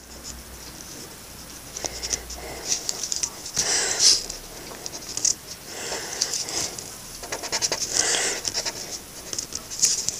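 Coloring on paper with a marker or crayon: repeated scratchy strokes that come in short, irregular bursts, the loudest about four seconds in.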